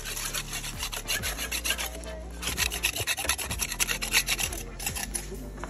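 Paintbrush scrubbing paint onto the rough masonry of a tomb vault in quick back-and-forth rasping strokes, with short pauses about two seconds in and near the end.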